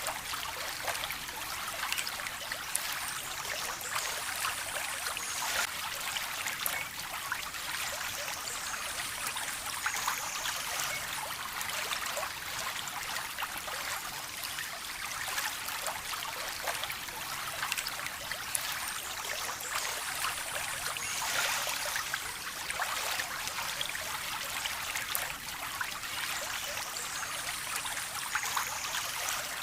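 Running water trickling and splashing steadily, a light, even rush made of many small splashes, with little low rumble.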